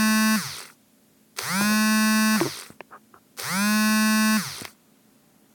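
Mobile phone vibrating for an incoming call: three buzzes about a second long, coming every two seconds, each rising to a steady pitch as it starts.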